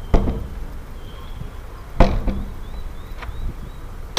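A wooden door in a metal frame swung and knocked twice against its frame and latch, two sharp knocks about two seconds apart, with a faint thin high squeak between them, as the door is tried after its hinges were adjusted to stop it hitting the frame.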